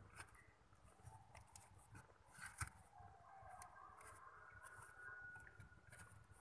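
Faint rustling and scratching of kittens moving over paper cartons in a cardboard box, with a sharper crinkle about two and a half seconds in.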